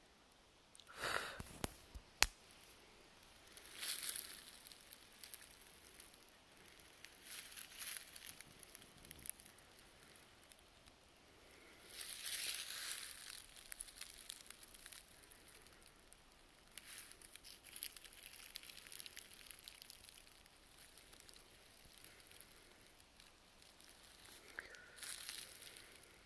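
Footsteps rustling through dry leaf litter on a forest floor, in irregular bursts every few seconds, with a sharp click about two seconds in.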